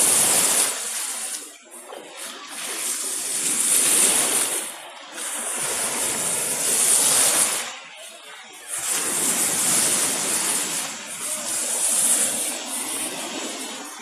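Sea surf washing in over a pebbly shore, foam hissing and fizzing, in about four surges that each swell and fade.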